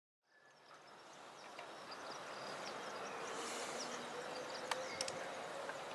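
Outdoor ambience fading in: a steady background hiss with a faint insect-like buzz and scattered faint short chirps, then two sharp clicks close together about five seconds in.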